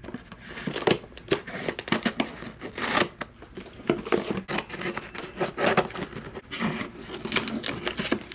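A package being opened by hand: irregular crinkling, tearing and clicking of packaging being ripped and unwrapped.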